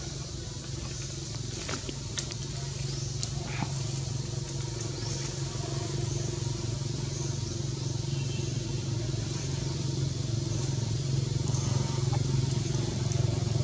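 A motor vehicle's engine running steadily, growing gradually louder, with a few faint clicks in the first few seconds.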